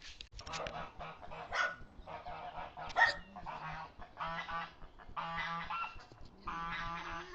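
An animal calling over and over: ragged calls at first, then settling into about one call a second in the second half, with a sharp click about three seconds in.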